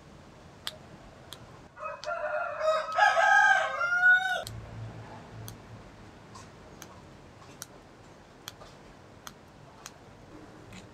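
A rooster crows once, a pitched call of about two and a half seconds starting about two seconds in and dropping at the end. Faint small clicks of papaya flower buds being picked from their stalk come and go.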